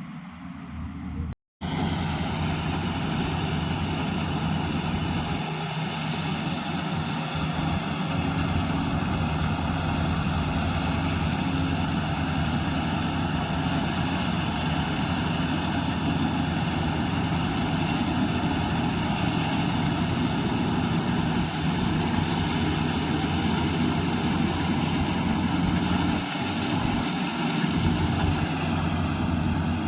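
Diesel engine and threshing machinery of a rice combine harvester running steadily in a constant drone, broken by a brief gap about a second and a half in.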